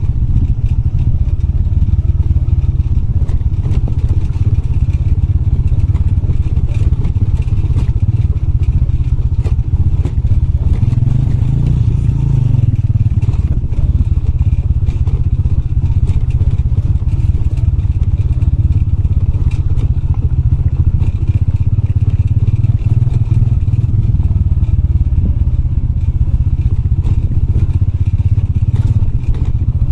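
Motorbike engine running steadily while riding, with frequent clattering knocks from the bike jolting over a rough, rocky dirt track.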